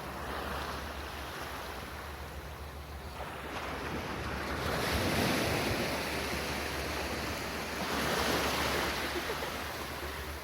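Small waves washing up on a sandy beach at low tide, the surf swelling twice, with wind rumbling on the microphone.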